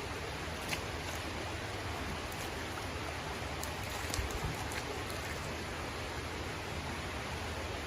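Steady rush of creek water, with a few light clicks and a small knock a little past the middle.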